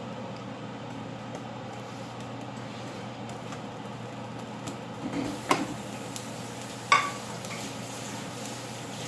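Steady low hum of the kitchen while a pot of rasam heats on the stove, with two sharp metal clinks, like a spoon against the pot, about five and a half and seven seconds in.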